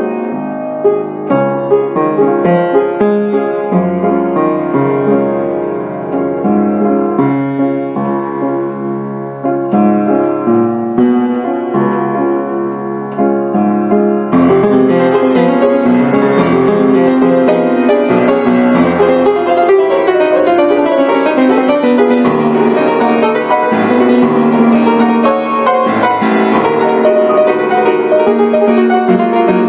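Piano music playing, with separate notes clearly struck. About halfway through it grows louder and fuller, with more high notes.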